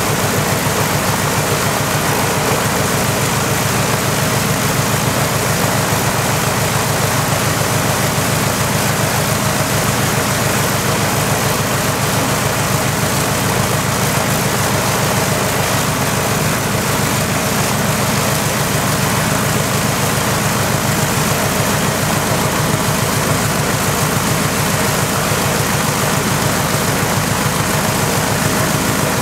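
Radial aircraft engine on a trailer-mounted test stand, running at a steady speed with its propeller turning: a loud, even engine note with a rapid firing pulse.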